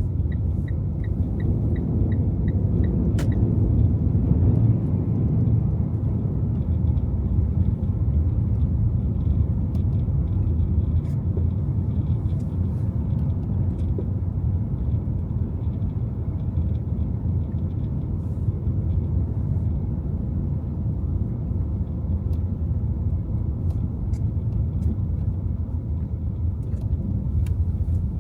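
Steady low rumble of a car driving on snowy city streets: tyre and engine noise. A quick run of evenly spaced faint ticks sounds in the first three seconds.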